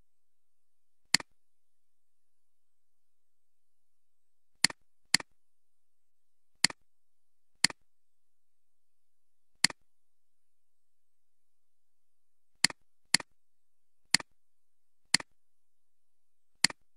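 Computer mouse button clicking, eleven sharp single clicks at irregular intervals of half a second to three seconds, some coming in pairs about half a second apart.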